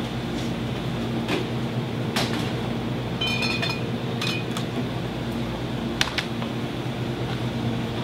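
Glass beer bottles clinking and ringing briefly, a bit past three seconds in, as one is taken from a cooler shelf, with a few sharp clicks around it. Under it runs a steady low hum of store refrigeration.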